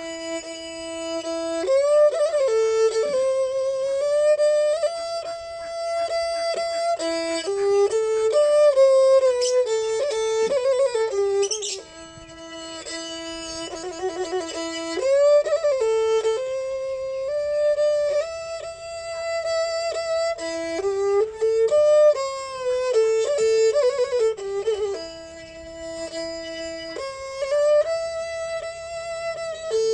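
Thai saw fiddle playing a mahori tune in old-style kantrum fashion: one bowed melodic line of held notes joined by sliding glides between pitches.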